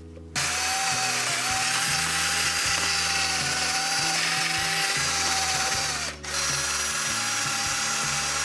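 Power drill running at a steady speed with a high whine, let off briefly about six seconds in and then run again.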